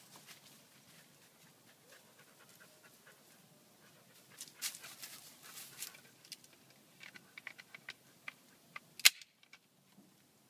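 A husky chewing a bamboo stalk: crunching, then a run of dry cracks, with one loud sharp crack about nine seconds in.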